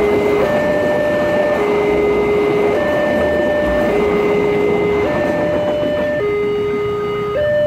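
Railway level-crossing warning alarm sounding a two-note electronic tone, high and low notes taking turns about once a second, over the rumble of a passing train. The train noise thins out after about six seconds as the last car clears the crossing, leaving the alarm.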